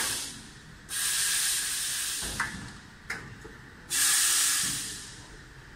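Compressed-air hiss from the pneumatic valves and cylinders of an automatic drum filling machine: a short burst, then two longer bursts of about a second each that start sharply and fade, with a couple of sharp clicks between them.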